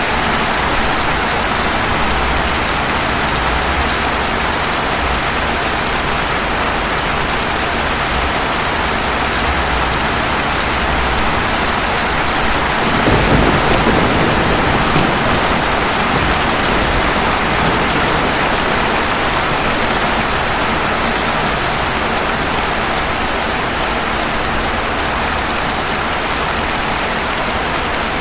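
Steady rain falling, an even hiss of drops, with a brief low rumble of thunder swelling a little before halfway through.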